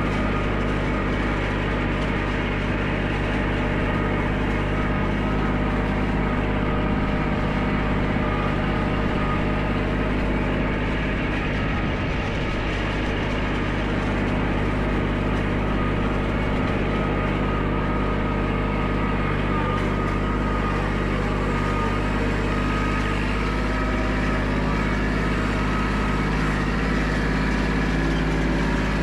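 Compact tractor's engine running at a steady, unchanging speed: a constant drone with no revving.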